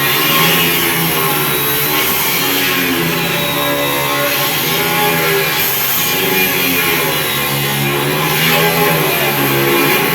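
A steady high grinding noise, typical of an angle grinder cutting stainless steel, mixed with background guitar music.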